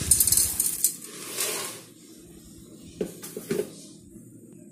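Dry roasted gram (split chana dal) poured from a plastic container into a stainless steel mixer jar: a rattling patter of grains on steel over about the first second and a half, followed by two light knocks near the end.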